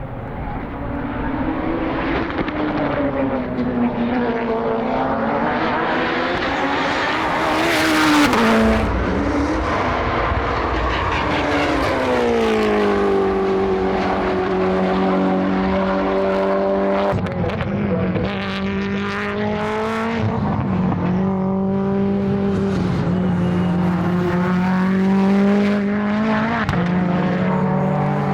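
Modified time-attack race car engines running hard on track, the note climbing and then dropping suddenly several times like gear changes. One car passes close about eight seconds in, and later there is a long falling note as a car slows.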